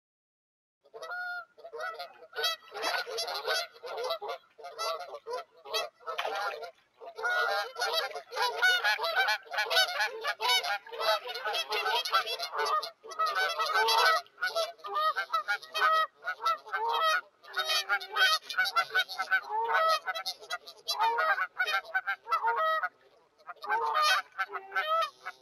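A flock of water birds calling: many overlapping calls that start about a second in and then keep up almost without a break, with frequent loud peaks.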